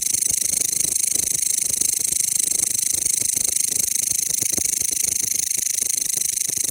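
Mecopoda elongata (a large bush cricket, or katydid) calling: a loud, continuous high-pitched buzzing trill of very rapid even pulses.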